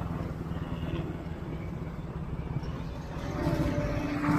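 Motorcycle engine running steadily while riding, with road and wind rumble. It gets a little louder about three seconds in.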